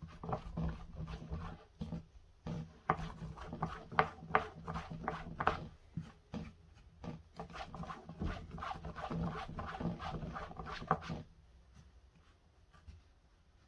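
A block of cold, fridge-hardened butter being grated on a hand grater, dusted with flour: repeated rasping strokes, with a short pause about six seconds in, stopping about eleven seconds in.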